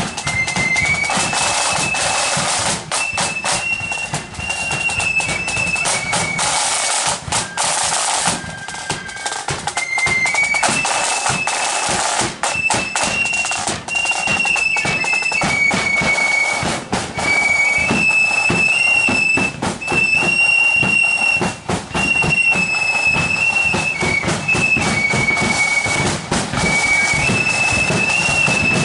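Marching flute band playing: high flutes carry a stepping melody over a steady beat of snare and bass drums.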